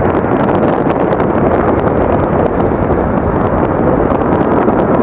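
Fighter jet's engines at takeoff power as it climbs away after takeoff: a loud, steady rushing jet noise.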